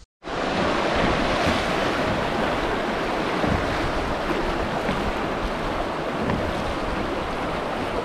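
Steady rushing of river rapids, whitewater churning around the kayak, with wind buffeting the microphone.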